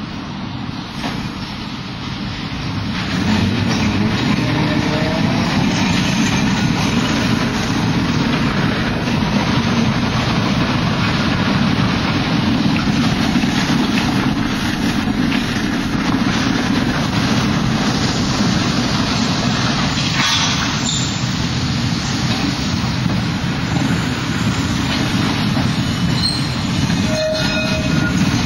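Milan street tram running on its rails: a steady rumble of wheels on track with scattered clicks, getting louder about three seconds in and staying loud.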